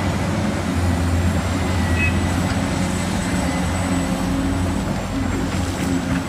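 Caterpillar 365C hydraulic excavator's diesel engine running steadily as it digs, a deep even engine hum with heavy machine noise over it.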